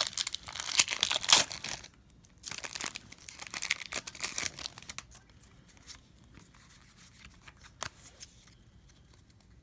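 Foil Pokémon booster pack wrapper being torn open and crinkled, in two bouts over about the first five seconds. After that it is quieter, with a few light clicks and rustles as the cards are handled.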